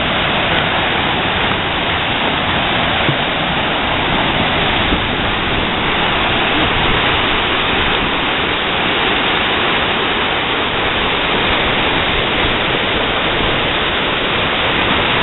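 Whitewater river rapids rushing through a rocky channel, a loud, steady, unbroken noise.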